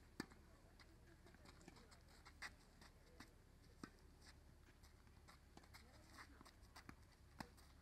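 Faint tennis rally on clay courts: scattered sharp pops of tennis balls struck by rackets and bouncing, the clearest just after the start, about two and a half seconds in, about four seconds in and near the end.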